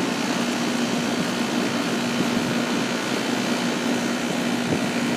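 A 2001 York central air conditioner's outdoor unit running: a steady rush of air from its A.O. Smith fan motor, with a steady low hum underneath.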